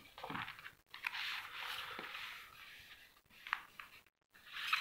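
Paper rustling in several swells as notebook pages are turned and the notebook is shifted by hand.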